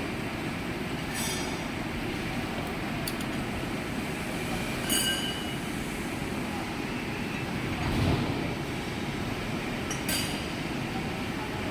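Metal lathe running with a steady mechanical noise. Three brief high-pitched metallic squeals come about 1, 5 and 10 seconds in, and a low rumble swells about 8 seconds in.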